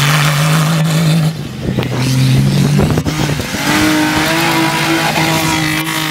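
Off-road 4x4 race cars driving past at speed, engines held at high revs: one steady engine note for the first three seconds or so, then the higher-pitched note of a second car taking over about halfway through.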